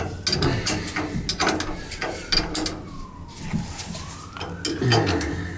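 Ratchet wrench clicking in quick back-and-forth strokes as it works the cover bolt on a heating oil tank's fuel filter, with a few low knocks. In the second half a faint tone dips and then rises.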